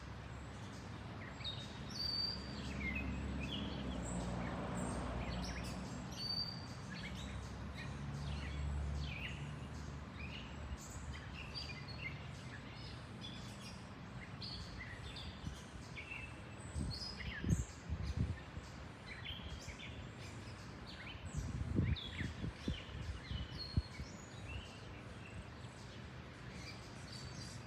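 Airbus A350-941 airliner with Rolls-Royce Trent XWB engines passing overhead, a low jet rumble that swells over the first ten seconds or so and then fades. Small birds chirp throughout. Two clusters of short crackling thumps come in the second half.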